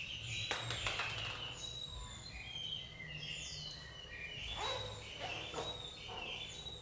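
Small birds chirping: many short, high chirps and twitters, some gliding, with a few faint clicks mixed in.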